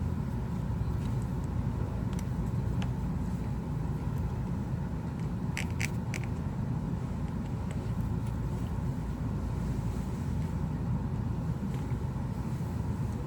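A steady low background rumble, with a few faint small clicks of a screwdriver and tiny screws being worked inside the phone. A quick cluster of three clicks comes about six seconds in.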